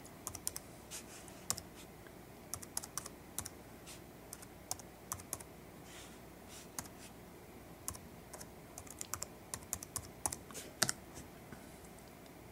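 Typing on a computer keyboard: irregular runs of short key clicks as a web address is entered, with one louder click a little before the end.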